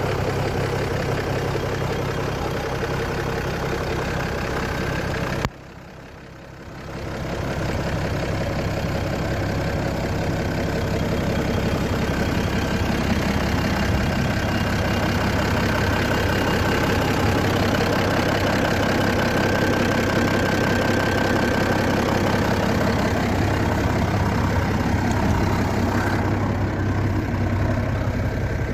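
Zetor 16245 Turbo tractor's six-cylinder turbo diesel idling steadily. The sound drops away suddenly about five and a half seconds in and builds back over the next second or two.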